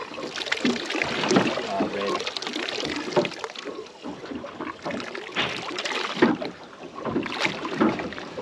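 Water slapping and sloshing against a boat's hull, with wind on the microphone, as a hooked fish is reeled to the surface; it splashes beside the boat near the end.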